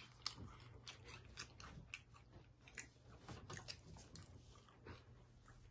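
Faint close-up chewing of a Kit Kat wafer bar: a run of irregular, crisp little crunches as the wafer is bitten and chewed.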